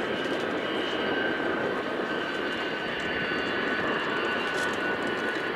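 Boeing KC-46A Pegasus tanker's two Pratt & Whitney PW4062 turbofans running at low taxi power as it turns onto the runway: a steady rush of engine noise with a high whine held on a steady pitch.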